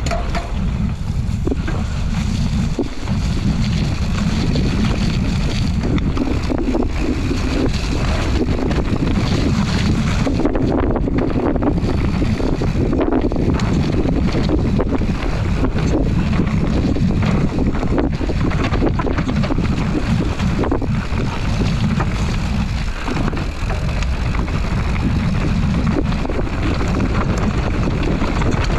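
Wind buffeting an action camera's microphone on a mountain bike descending a dirt trail, over the rumble of knobbly tyres on the ground. Frequent short knocks and rattles come from the bike going over bumps.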